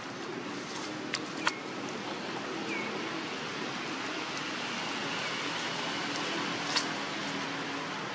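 Steady outdoor background hiss, with three short sharp clicks (two close together about a second and a half in, one near the end) and a few faint, short chirps.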